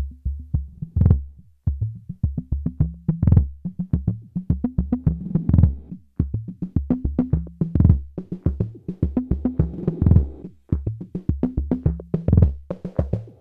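Arturia DrumBrute analog drum machine playing a busy, repeating electronic drum pattern: deep pitched low notes that step between a few pitches, under quick, sharp hits.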